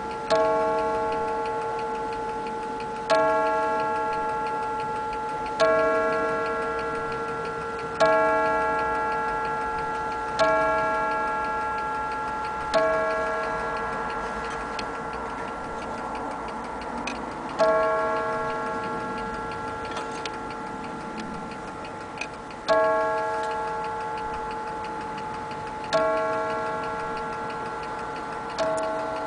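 German HAS striking mantel clock sounding the hour: ten slow strikes, a little unevenly spaced, each ring dying away, with the movement ticking underneath.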